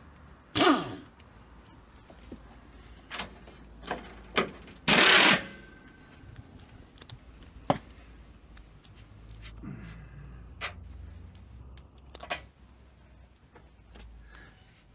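Cordless impact wrench undoing the nut on the rear shock absorber's top mount: two short bursts, about half a second in and about five seconds in, the first winding down as it stops. Metal clinks and knocks from the tool and parts come in between and after.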